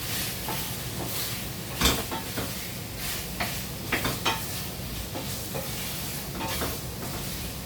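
Food sizzling in hot oil in a frying pan, with a utensil stirring and scraping against the pan in a few sharp knocks, the loudest about two seconds in.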